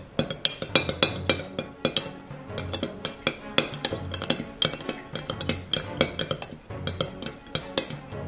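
A metal spoon stirring a cocktail in a glass mason jar, clinking rapidly and irregularly against the glass, over background music with a steady beat.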